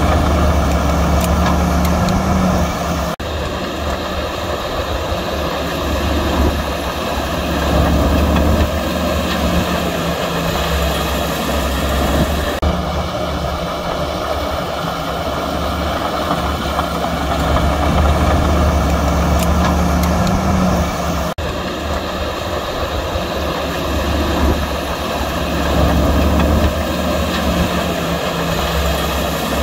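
Diesel engines of heavy earthmoving machinery running steadily, with a strong low engine hum. The sound breaks off briefly and resumes three times.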